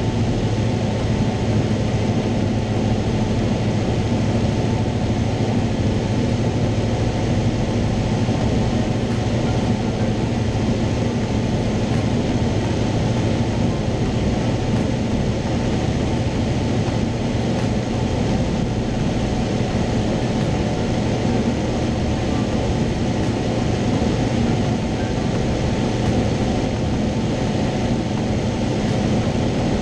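Cessna 172's piston engine and propeller running steadily in flight, heard from inside the cabin as a constant low drone with wind noise.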